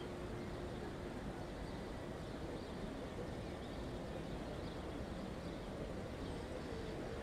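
Faint, steady open-air ambience heard from a drifting hot-air balloon with its burner off: a low, even hush with faint distant sounds from the ground below.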